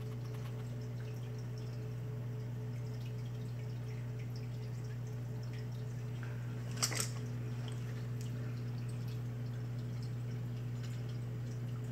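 Reef aquarium's water circulation: a steady low hum with water trickling and dripping, and a short sharp click about seven seconds in.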